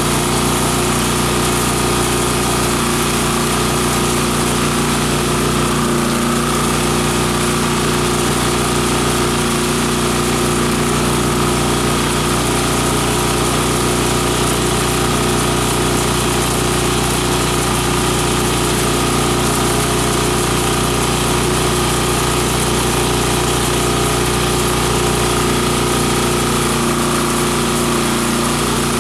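Multi-blade chopper-grinder driven by an 18 HP electric motor, running steadily at an even pitch while grinding dried plant material fed into its hopper.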